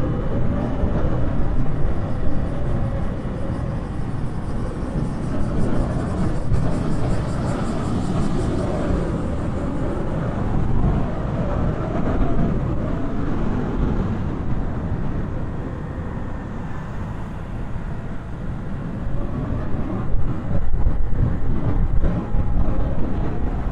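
Wind buffeting a clip-on microphone while on the move: a loud, low rumble that swells and eases, with no clear engine note.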